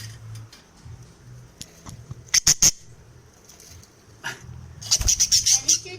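Budgerigars calling with short, harsh squawks: three loud ones in quick succession about two and a half seconds in, then a rapid run of squawks near the end.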